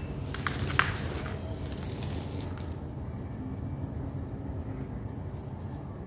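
Hands squeezing and crumbling dry, dusty sand-cement clumps, with sharp crunchy crackles in the first second, then softer, fainter crumbling. A steady low rumble runs underneath.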